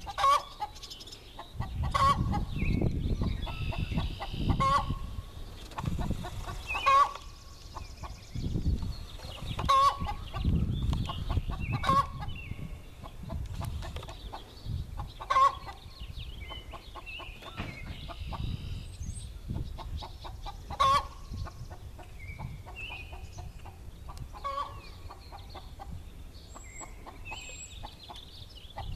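Hen calling loudly with short, repeated squawks, one every two to three seconds, about ten in all, stopping a few seconds before the end.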